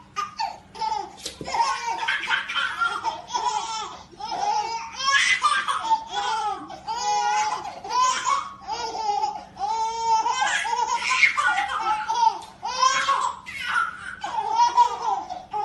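Babies laughing hard, in one high-pitched laughing fit after another.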